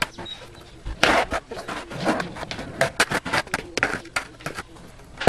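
Skateboard deck and wheels on concrete during a switch heelflip attempt: a rapid series of sharp clacks and slaps as the board is popped, flips and strikes the ground, starting about a second in.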